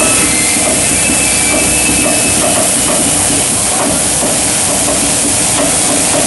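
High-frequency welding I-beam production line running: a loud, steady mechanical rumble and hiss of the machinery without a break.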